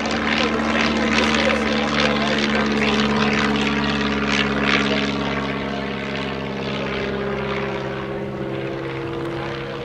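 Stampe SV4C biplane's inverted four-cylinder piston engine and propeller droning steadily in flight during an aerobatic display, a little softer in the second half.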